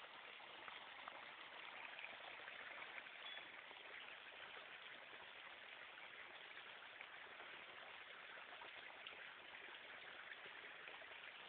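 Near silence: a faint, steady hiss with no distinct event.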